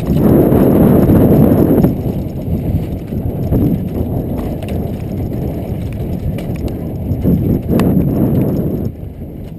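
Mountain bike riding fast down a dry dirt trail, heard from a camera mounted on the rider: tyres rumbling over dirt and the bike rattling and clacking over the bumps. The rumble is loudest for the first two seconds and eases after, with a sharp clack about eight seconds in.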